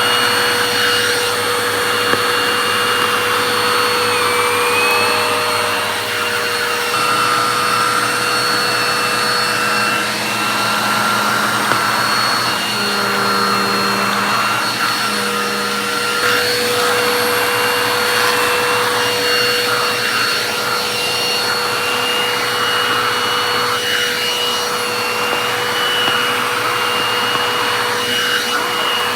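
Vacuum cleaner running continuously, its motor whine steady apart from a brief dip in pitch about four seconds in.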